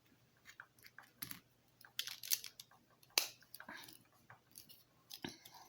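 LEGO bricks clicking and tapping as pieces are handled and pressed together: a string of faint, sharp, irregular clicks.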